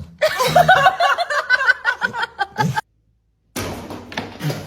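A person's high-pitched laughter in quick bursts, cut off suddenly about three seconds in.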